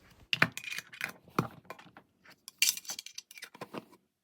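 Small metal putty tins being handled, giving a series of irregular light clinks and taps, with a brighter cluster of clinks a little before three seconds in.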